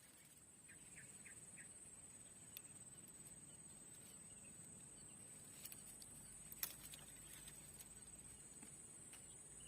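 Near silence: faint outdoor ambience with a steady high-pitched whine, a few short faint chirps about a second in, and a single click a little past the middle.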